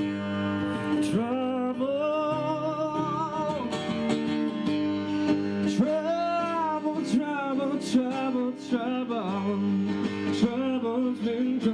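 A song with acoustic guitar and a singing voice; the voice holds long notes with vibrato over steady guitar chords.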